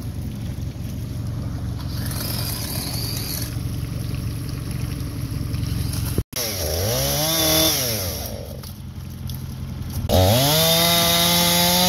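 A 9.9 hp outboard motor idles with a low steady hum. After a short break a chainsaw revs up and drops back to idle. About ten seconds in the chainsaw revs up again and holds at full speed, cutting into a fallen tree.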